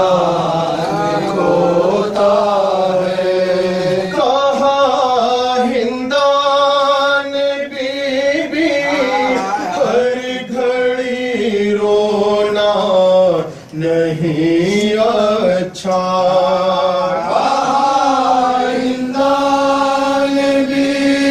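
Two men chanting an Urdu noha, a Shia lament for Muharram, in a slow melody with long held notes.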